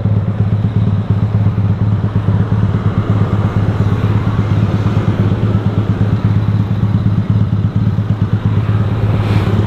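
Motorcycle engine running steadily while riding, with a fast, even low pulsing.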